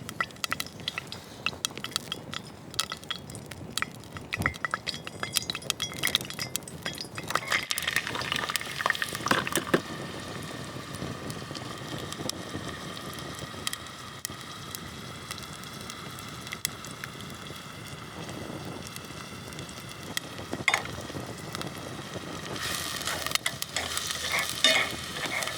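Food sizzling in a pot over a wood fire, stirred with a utensil that clicks and scrapes against the pot in the first ten seconds and again near the end.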